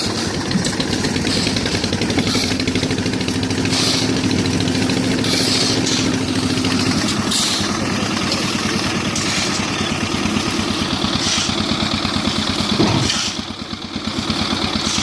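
Engine of a concrete mixer machine running steadily, with light clattering over it. A single sharp knock sounds a couple of seconds before the end, and the level dips briefly after it.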